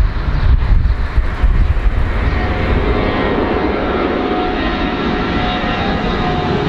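Four-engine jetliner's engines at takeoff power as it climbs out: a deep, uneven rumble at first, then from about two seconds in a steadier roar with a high engine whine riding on it as the jet comes overhead.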